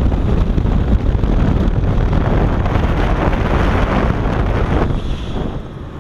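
Loud wind rushing over the camera's microphone during a fast cable-controlled freefall, easing off about five and a half seconds in as the descent slows for the landing.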